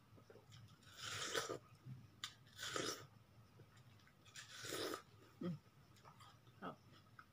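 Biting into a slice of juicy watermelon: three noisy bites a second or two apart, with quieter chewing after them.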